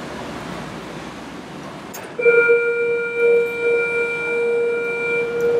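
Indoor arena scoreboard horn sounding one long, loud, steady blare that starts suddenly about two seconds in and holds for over three seconds, signalling that time has run out. Before it, a steady hum of arena noise.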